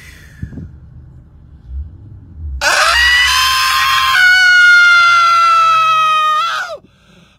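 A person wailing in grief: one long, loud, high cry beginning about two and a half seconds in, held for about four seconds, dropping in pitch partway through and breaking off near the end.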